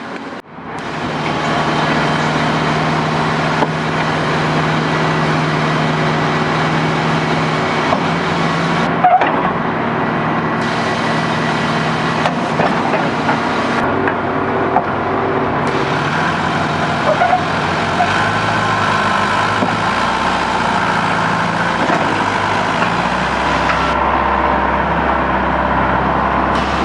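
Heavy diesel engines of an excavator and a bulldozer running steadily under load in deep mud, with a few short metallic clanks.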